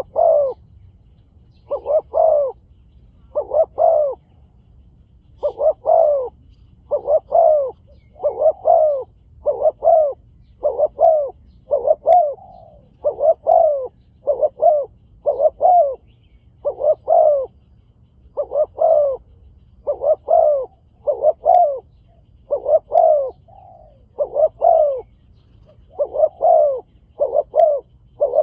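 Spotted doves cooing over and over, short coos grouped in twos and threes with brief gaps between groups.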